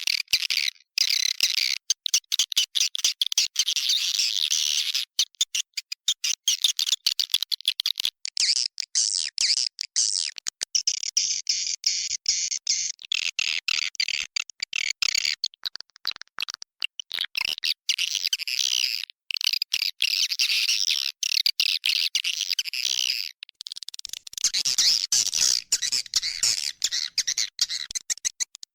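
Swiftlet lure call: dense, rapid, high-pitched twittering and chirping of edible-nest swiftlets recorded inside a swiftlet house, chopped by many brief drop-outs. It is the call played to draw swiftlets into a nesting house.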